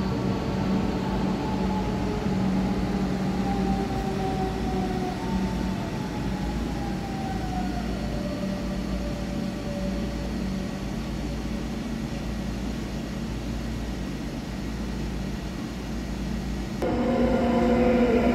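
Electric train in a station: a whine from its drive that slowly falls in pitch as it slows, over a steady low hum. About seventeen seconds in, the sound switches abruptly to a louder electric train whine made of several steady tones.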